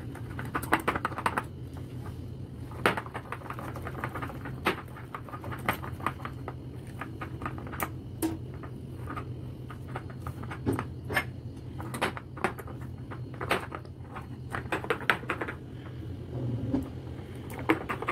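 Wire whisk clicking and tapping against a glass bowl while beating cocoa powder into thick chocolate cupcake batter, in irregular quick clusters of clicks over a steady low hum.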